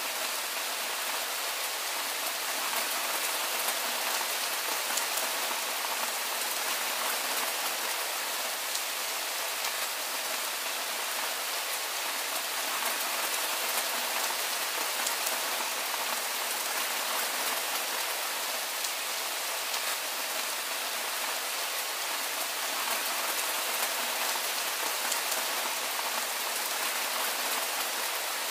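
Steady rain falling: an even hiss with many fine drop ticks.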